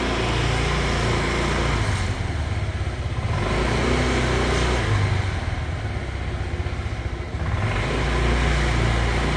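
Honda PCX125 scooter's single-cylinder engine and CVT drivetrain running under way, with a steady low engine note and rushing noise. The engine sound eases off about two seconds in and picks up again near the end. There is no airplane-like whine from the drivetrain: the owner says the new needle and radial bearings and a drivetrain clean have cured it.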